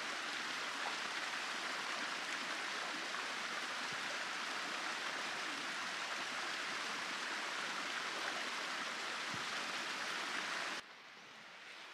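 Running water rushing steadily, dropping off abruptly near the end to a quieter hiss.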